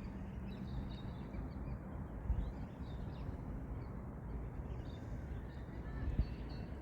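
Outdoor lakeside ambience: faint, scattered bird calls over a steady low rumble of wind on the microphone.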